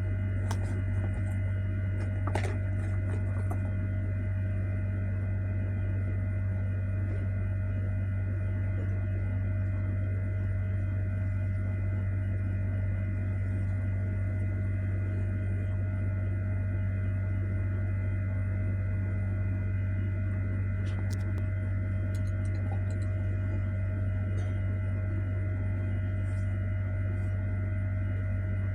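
A 2-in-1 hair dryer running steadily: a low motor hum with a few thin whining tones above it, with faint clicks now and then.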